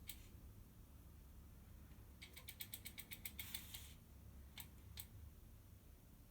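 Freehub ratchet of a Prime Black Edition 50 bicycle rear wheel clicking faintly as the wheel freewheels: a single click, then about two seconds in a quick run of about a dozen clicks, several a second, then two more clicks.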